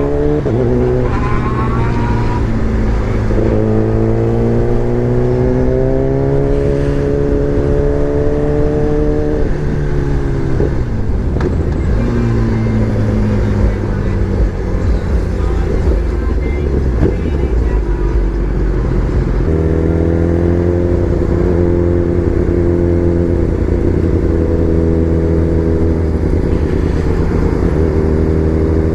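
Sport motorcycle engine running while riding. Its note climbs slowly for about ten seconds, drops away, runs lower and steady for a while, then steps up about two-thirds of the way through and holds.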